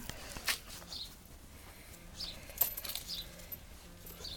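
Light rustling and a few sharp knocks of something being handled close by, with a small bird chirping repeatedly in the background, about once a second.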